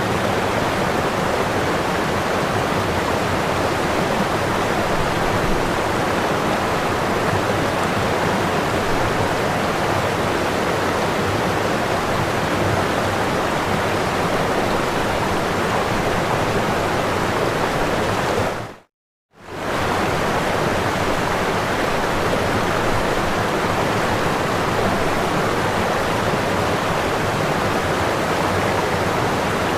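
Steady, even rushing noise with no rhythm or pitch. It drops out to silence for about half a second roughly two-thirds of the way through, then resumes unchanged.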